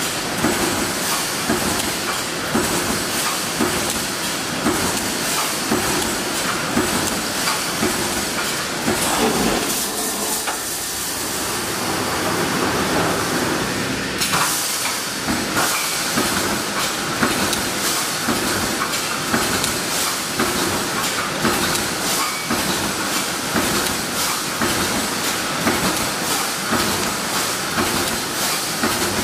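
Automatic welded-wire-mesh welding machine running on low carbon steel wire: an even, rhythmic mechanical clatter of its welding and feed strokes over a constant hiss. About halfway through, the hiss suddenly grows brighter.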